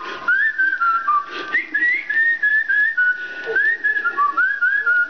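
A man whistling a made-up tune: a string of clear notes that step and slide up and down, with a couple of brief breaks for breath.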